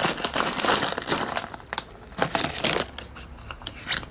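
Clear plastic packaging bag crinkling as it is handled and pulled open. There is a dense crinkle for about the first second and a half, then scattered sharp crackles.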